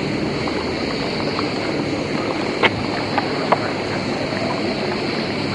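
Steady low engine hum under a wash of wind-like noise, with three short sharp clicks about halfway through.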